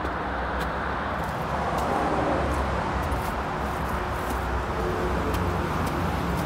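Steady rush of motorway traffic, with faint footsteps on leaf-strewn concrete steps.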